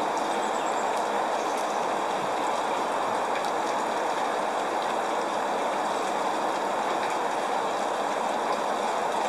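Steady rain falling, an even hiss at a constant level with a few faint drip ticks.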